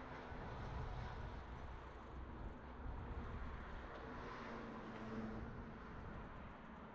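City street ambience: a steady hum of road traffic.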